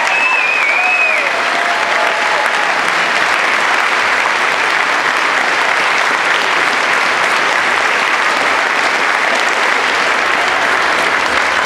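Audience applause, a steady sustained clapping from a large crowd.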